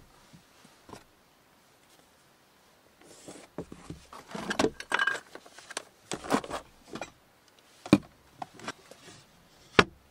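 Things being handled inside a wooden storage crate: rustling and light clattering, then two sharp wooden knocks near the end as the lid is shut.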